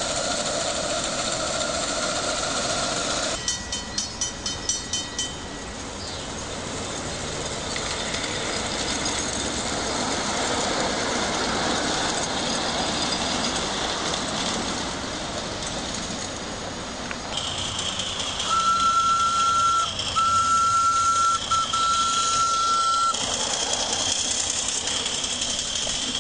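Miniature ride-on railway trains running: a small locomotive's motor whines, then a crossing bell rings about six quick strokes a few seconds in. Later a whistle sounds three long blasts.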